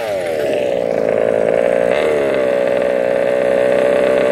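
Small two-stroke gas engine of a Rovan 1/5-scale RC truck coming off the throttle and settling into a steady idle, with one short blip of the throttle about two seconds in.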